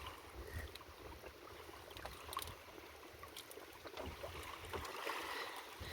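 Faint water lapping around a small boat, with a low wind rumble and a few light knocks.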